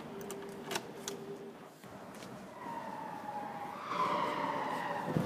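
Key clicking in a door lock, then a siren wailing, its pitch sliding down and back up and growing louder.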